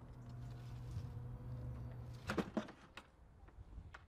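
A few sharp plastic clicks and knocks, a snap-on hose coupling being handled at a water butt's tap, over a low steady hum that stops about two seconds in.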